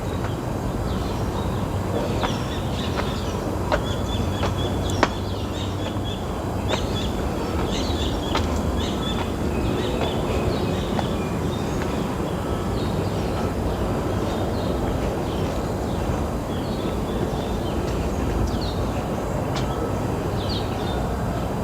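Outdoor ambience: a steady low rumble with scattered short bird chirps and a few sharp clicks.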